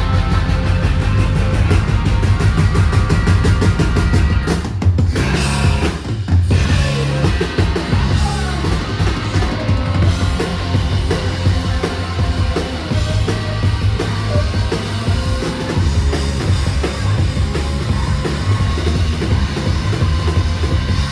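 Live alternative rock band playing loud, with the drum kit and bass driving the song. There are brief breaks in the sound about five and six seconds in.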